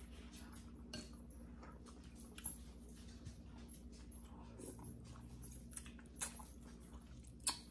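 People slurping and chewing instant noodles, with scattered small wet smacks and clicks of eating and a sharper smack near the end.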